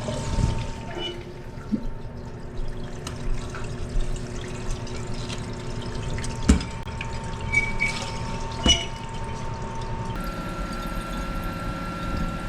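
Toilet tank refilling through its fill valve after the water supply is turned back on: a steady hiss of running water with a thin whistling tone. There are a couple of sharp knocks.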